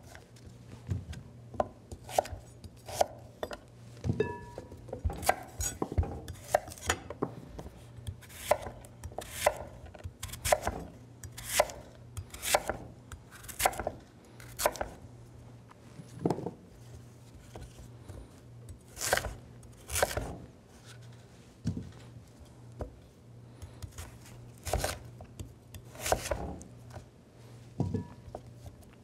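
Chef's knife chopping raw sweet potatoes on a wooden chopping board: a long run of sharp knife strikes against the board, irregular, roughly one to two a second.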